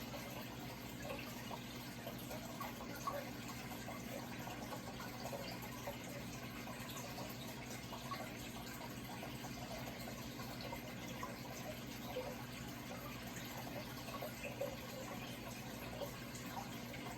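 Running water trickling and splashing steadily, full of small bubbling plips, over a low steady hum.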